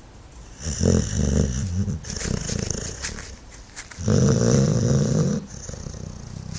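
A sleeping dog snoring: two loud, long snores about three seconds apart, with a softer snore between them.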